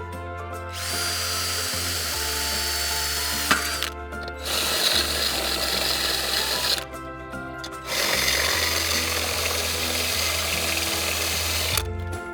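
Hammer drill boring into the wall in three runs of a few seconds each, with short pauses between, over background music.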